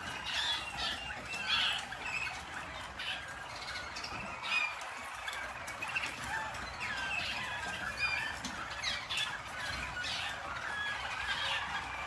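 Harzer Roller canaries singing in their cages: an unbroken stream of overlapping short notes and trills.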